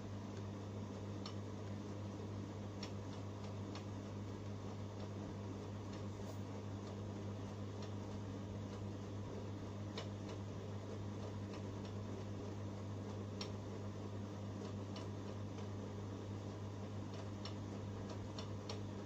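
Hot air rework station blowing steadily over a phone logic board, a constant hiss with a low electrical hum, heating the board to lift the eMMC chip. A few faint, light ticks sound here and there.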